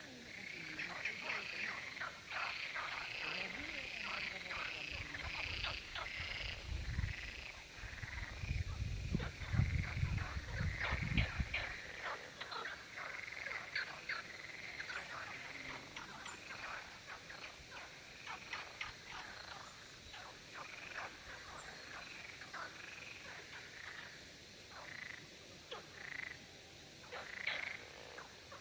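Chorus of male frogs calling together, many short pulsed croaks overlapping as the males compete to attract females. A low rumble comes in for a few seconds about a quarter of the way in.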